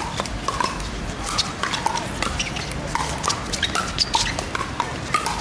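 Pickleball paddles hitting the plastic ball: a quick, irregular run of hollow pocks, some near and some farther off from other courts.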